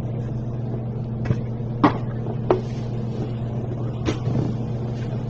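Steady low hum under a few light taps and clicks as an empty cardboard trading-card box and its insert are handled and set aside.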